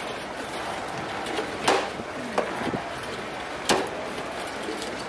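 Two sharp cleaver chops through a large fish, about two seconds apart, with a couple of lighter knocks between them, over steady background noise.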